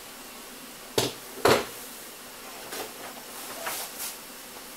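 Two short knocks or clicks about a second in, half a second apart, then a few fainter ones, over a steady hiss.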